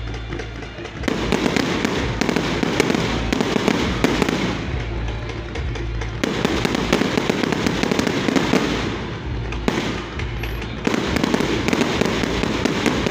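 Fireworks display: many aerial shells and fountains crackling and popping in dense volleys, with two brief lulls.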